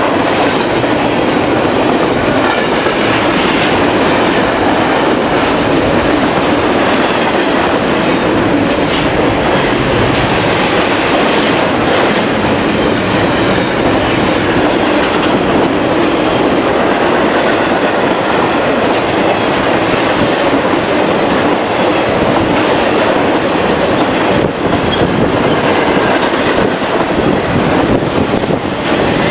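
Long intermodal freight train of double-stacked containers and highway trailers on flatcars passing close by: a loud, steady rolling rumble of steel wheels on the rails, with a few sharp clicks.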